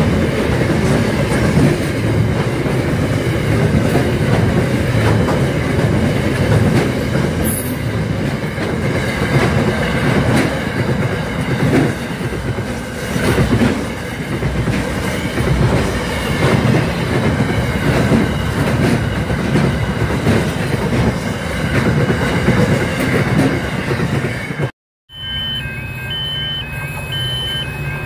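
Freight train wagons rolling past at a level crossing, wheels clacking steadily over the rail joints with a brief high squeal about seven seconds in. Near the end the sound cuts to a quieter scene with a low hum and a fast electronic beeping in two alternating pitches as another freight train approaches.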